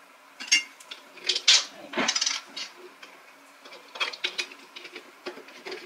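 Kitchen utensils and dishes clinking and knocking: a series of separate light clinks and taps, the loudest about one and a half and two seconds in.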